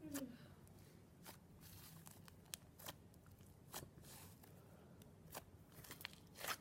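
Faint, scattered soft clicks and pops of pink fluffy slime being swirled and pressed by hand, about eight in all, over near-silent room tone.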